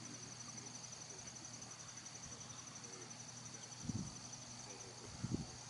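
Crickets chirring steadily in a continuous high-pitched chorus, with a few short low thumps about four and five seconds in.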